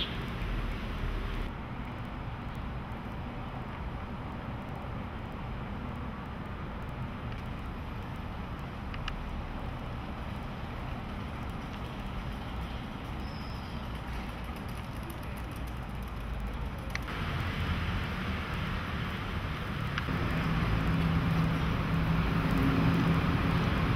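Steady outdoor road-traffic noise. Near the end a low, steady hum comes in and the sound grows louder.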